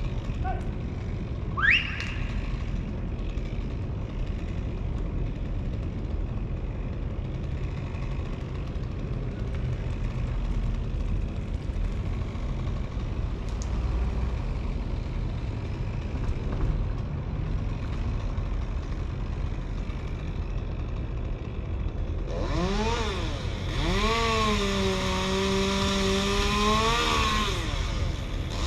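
A steady low engine rumble, with a brief rising squeal about two seconds in. About 22 seconds in a chainsaw revs up. Its pitch rises and falls with the throttle, and it is held at high revs for a few seconds before dropping back and revving again near the end.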